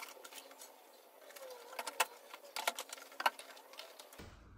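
Scattered light clicks and taps of plastic bottles and their caps being handled during refilling, the sharpest between about two and three seconds in.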